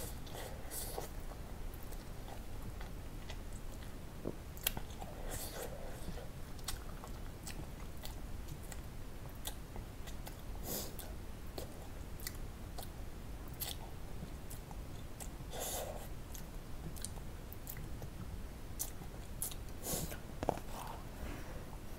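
Close-miked chewing of spicy ramen noodles: irregular short wet clicks and mouth smacks over a steady low hum.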